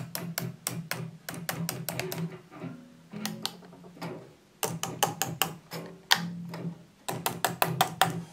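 Pickups of a Fender Stratocaster, one a newly fitted Seymour Duncan Hot Rails, tapped with a metal screwdriver and heard through a guitar amplifier: runs of rapid sharp clicks over a steady hum, with brief pauses between. This is a check that each pickup works after the swap.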